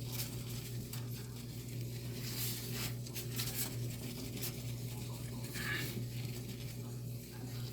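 Grade 0000 steel wool rubbing on microwave door glass in intermittent strokes, with a few light clicks, over a steady low hum.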